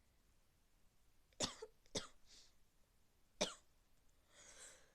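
Three short, sharp coughs from a person with a cold, the first two about half a second apart, then a soft breathy inhale near the end.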